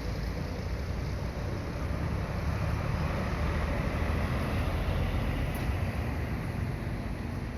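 Diesel city bus passing close by, its engine and tyre noise building to a peak midway and easing off near the end.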